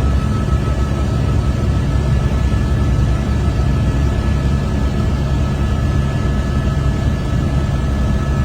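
Helicopter noise heard from inside the cabin: a steady, loud rotor and engine drone with a thin constant whine above it.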